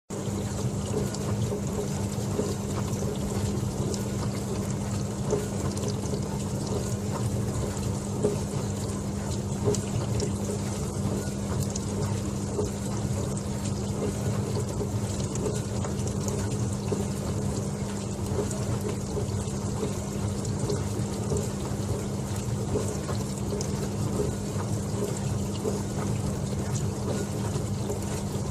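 Dishwasher running: water spraying and splashing inside the tub over a steady low hum.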